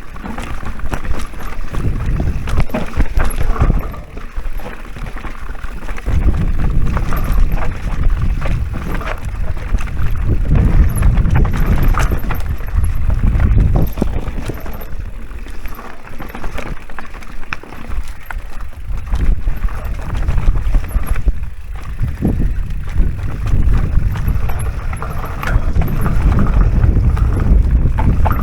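Moustache e-mountain bike riding a dirt trail: the tyres roll and the bike rattles and knocks over rough ground, under heavy wind buffeting on the action camera's microphone that swells and eases every few seconds.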